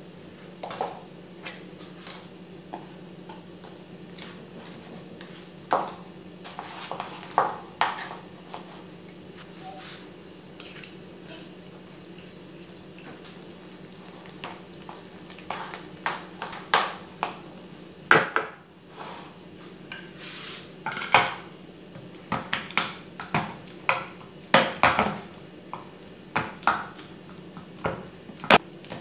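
Kitchen utensils knocking and scraping against a ceramic mixing bowl as flour and mashed banana are mixed into a cake batter, in irregular clinks that come thicker in the second half, over a steady low hum. Near the end a knife chops through a bar of dark chocolate on a wooden board.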